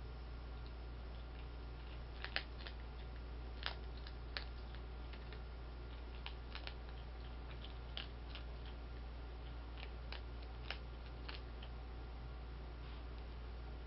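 Skunks crunching dry cat food from bowls: scattered, irregular crisp clicks over a steady low hum.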